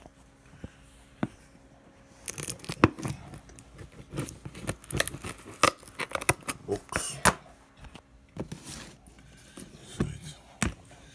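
Scissors cutting through packing tape and paper wrapping on a cardboard box, a run of irregular snips, crackles and tearing rustles that starts about two seconds in.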